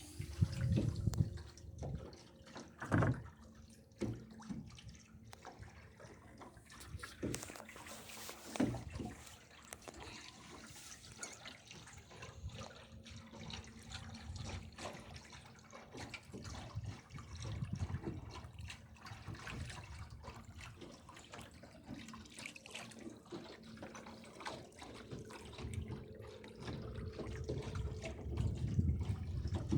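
Water lapping, trickling and splashing against the hull of a small sailing dory under way, with a few knocks and low rumbles.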